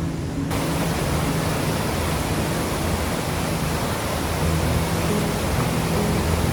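Steady rush of Gold Creek's water, a dense even noise that cuts in suddenly about half a second in.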